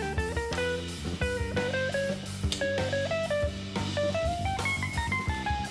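Background music: a guitar melody over a steady drum beat, in a blues-rock style.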